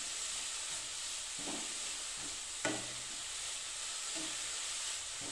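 Grated carrot sizzling in a nonstick pan as a spatula stirs it, with a few short scrapes of the spatula against the pan, the loudest about two and a half seconds in. The carrot is being sautéed so that its own water cooks off.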